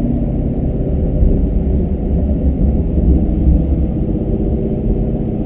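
Shelby GT350's V8 engine running steadily, heard from inside the cabin, with a low tyre and road rumble underneath.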